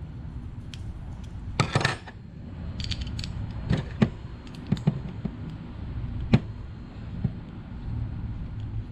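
Small metal clinks and taps of hand tools and bolts as the two halves of a minibike's disc brake caliper are bolted back together, with a brief metallic jingle about two seconds in.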